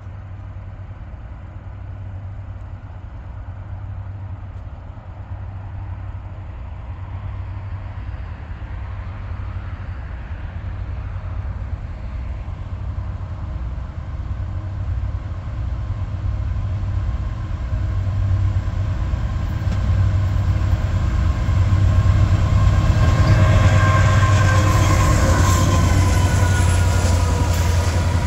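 Diesel freight train approaching: the locomotives' engine drone is low and steady and grows louder throughout. Rail and wheel noise and a few steady ringing tones build over the last several seconds as it nears.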